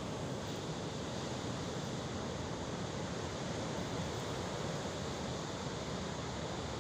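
Sea waves and surf with rain: a steady, even rush with no single wave break standing out.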